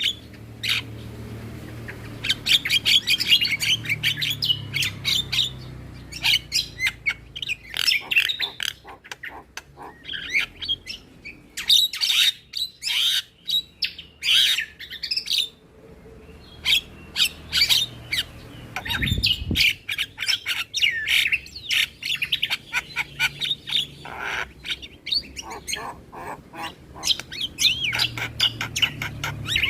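Javan myna (jalak kebo) calling: runs of rapid, harsh chattering squawks and chirps, broken by short pauses.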